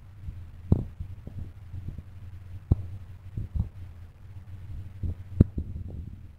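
Low steady hum with a few sharp knocks, the loudest about a second before the end.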